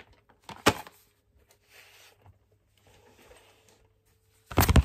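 A sharp knock about a second in, faint rustling, then a quick run of loud knocks and clatter near the end: things being handled and bumped.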